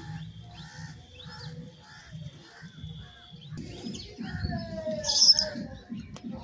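Small birds chirping in short quick notes over background music with a steady repeating beat, with one louder shrill call about five seconds in.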